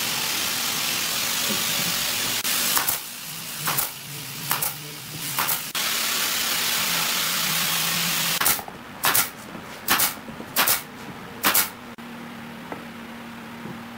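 Compressed air hissing from an air line. A long steady hiss is followed by a few short bursts, then a second long hiss, then about five short sharp bursts. A fainter steady hum is left near the end.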